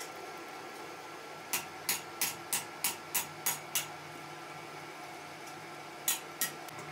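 Manual metal lathe running steadily while a cutting tool turns a small metal firing pin. A run of sharp, evenly spaced clicks, about three a second, starts about one and a half seconds in and lasts about two seconds, with two more near the end.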